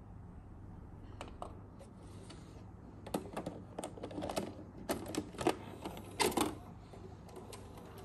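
A Sharp VC-MA30 VHS video recorder taking in a cassette: the tape is pushed through the front flap and the loading mechanism draws it in. This makes a run of clicks and clunks, loudest between about three and six and a half seconds.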